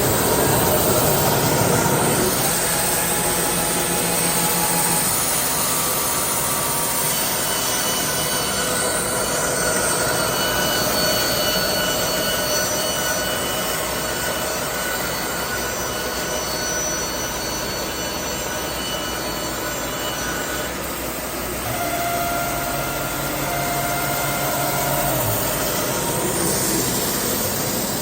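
Baker band sawmill running steadily as its blade cuts through a log. A new hum comes in about three-quarters of the way through and drops away a few seconds later.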